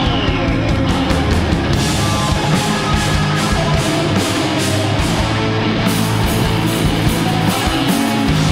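Doom and sludge metal band playing live: heavily distorted electric guitars and bass over drums with steady cymbal strokes, the full band hitting harder about two seconds in.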